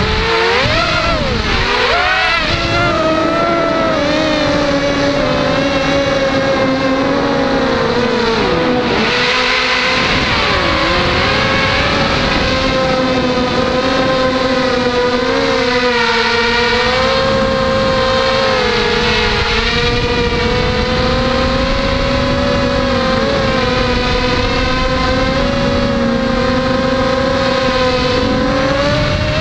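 Hexacopter's six Tiger MN1806 2300kv brushless motors with 5x3 two-blade props whining in flight. The pitch dips and swings with throttle changes in the first few seconds and again about ten seconds in, then holds fairly steady.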